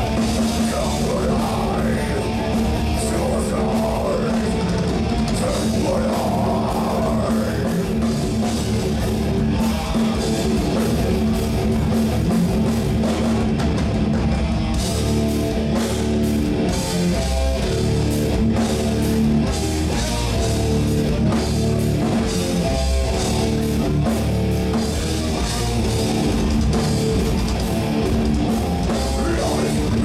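Heavy metal band playing live: distorted electric guitars, bass and a drum kit, loud and continuous.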